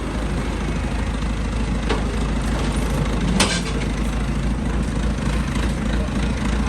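Heavy vehicle engine running steadily at low revs, with two short sharp knocks, the second, about three and a half seconds in, the louder.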